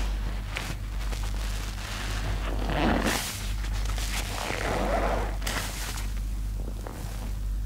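Soap-soaked sponge squeezed and kneaded by rubber-gloved hands in a basin of foamy water: wet squelching and sloshing, with two louder squeezes about three and five seconds in.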